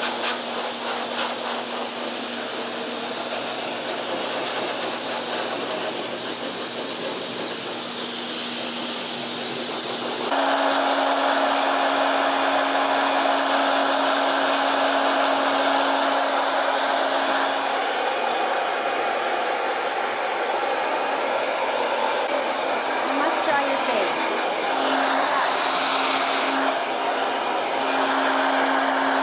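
Pet grooming dryer running, with steady blowing air and a steady motor hum. About ten seconds in it gets louder and the hum steps a little higher, and later the hum fades and returns a few times.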